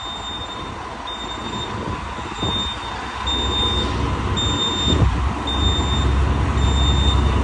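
Diesel engine of an FNM truck fitted with Scania 112 mechanics and an exhaust diffuser, pulling away as it is put into gear. Its low exhaust rumble grows steadily louder from about three seconds in. A high-pitched reversing alarm beeps about once a second throughout.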